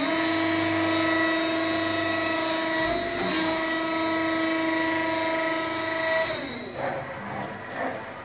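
CNC press brake's motor whining: it rises in pitch as it spins up, holds one steady tone for about six seconds, then winds down, followed by a few faint knocks.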